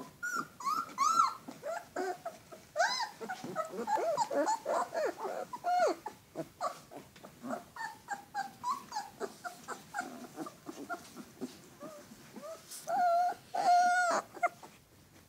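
Alaskan malamute puppies whining and yelping as they wrestle: a quick run of short, squeaky cries that rise and fall in pitch, thinning out after about six seconds. Near the end one puppy gives two longer, steadier whines.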